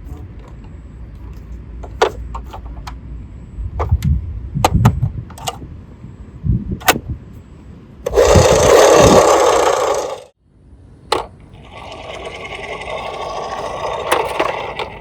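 Toy cars clacking as they are handled and set down. Then one runs down a slope with a loud rattle for about two seconds that stops suddenly, followed by a second, softer rattling run.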